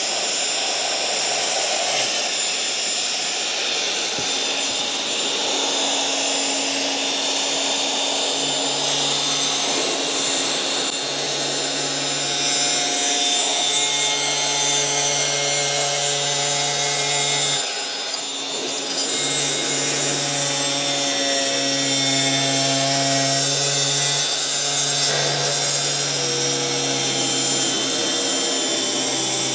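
Angle grinder with a diamond-rimmed disc dry-cutting a solid stone composite shower base, running steadily with a high whine. The level dips briefly about two-thirds of the way through. A blower runs alongside, clearing the dust from the cut.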